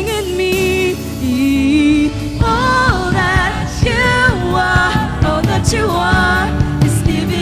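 Live Christian praise-and-worship band playing with a singer holding drawn-out wavering notes; drum hits come in about two and a half seconds in.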